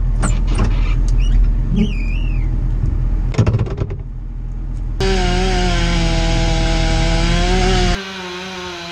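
A mini excavator's diesel engine idling, with a few knocks and clatter. About halfway through, a Stihl MS262 chainsaw starts running at full throttle, its pitch sagging slightly as it cuts into the base of a honey locust. Near the end it drops in level and keeps running.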